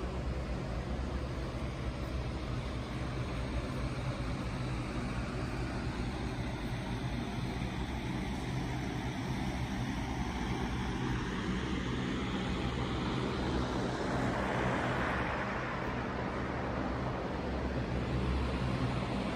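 TerrainHopper electric off-road mobility vehicle driving on a concrete floor: a steady electric drive hum and whir with knobby tyres on concrete, changing in tone as it moves about and swelling briefly about two-thirds of the way in.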